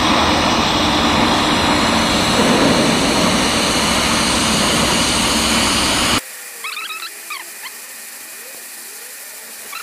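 Loud steady rushing workshop machinery noise, cutting off abruptly about six seconds in. After that comes quieter background with faint high chirps.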